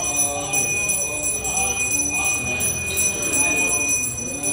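A hand bell rung without a break, a steady high ringing, over voices chanting Vedic mantras during a homa fire ritual.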